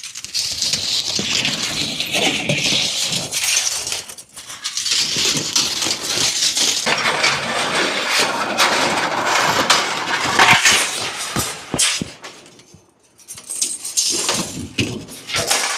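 Pieces of scrap metal clattering, clinking and scraping against each other as they are rummaged and pulled out of a pile, with many sharp knocks. The clatter lets up briefly a few seconds before the end, then comes back in a short burst.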